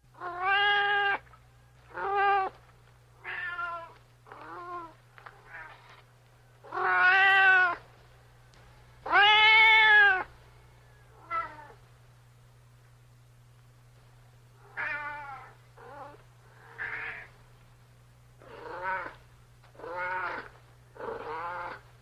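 Cat meowing over and over, more than a dozen meows of varying length, the two longest and loudest about seven and nine seconds in, with a pause of a few seconds near the middle. A steady low hum runs underneath.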